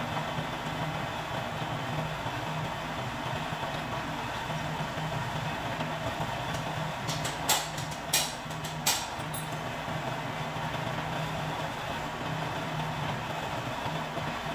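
Belt-driven drill press running with a steady motor hum while its bit drills into a camphor wood log. Three sharp knocks come close together about halfway through.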